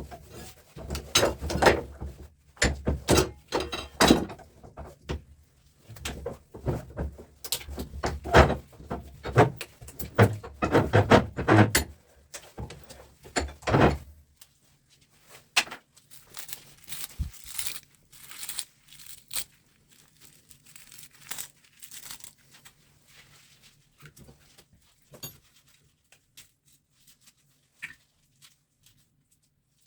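Knocks, clinks and scraping of metal parts being worked apart by hand while an electric fan motor is dismantled for its copper windings. The knocking is dense and loud for about the first half, then turns into sparser, quieter clicks and scrapes.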